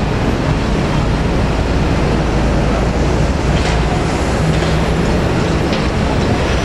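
UD Quester truck's diesel engine running with a steady low rumble as the tractor-trailer rolls slowly through a turn.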